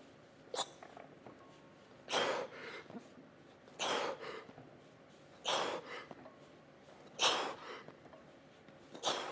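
A man breathing out forcefully with each rep of a bodyweight barbell bench press done for maximum repetitions. There are six short breaths, about one every second and a half to two seconds.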